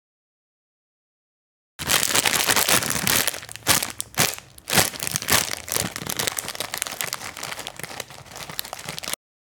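Foley sound effect of dense crinkling and crackling, full of sharp clicks, starting about two seconds in and cutting off abruptly near the end.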